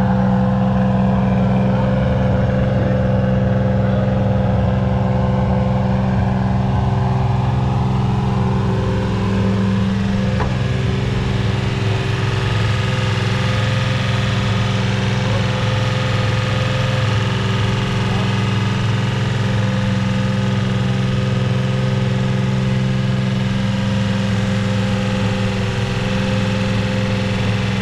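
Car engine running steadily at a near-constant speed, its pitch shifting only slightly partway through.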